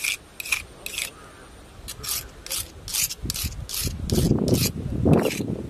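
A knife blade being scraped back and forth on a stone to sharpen it: about a dozen short, rasping strokes, roughly two a second, with a brief pause about a second and a half in. A low rumble joins the strokes near the end.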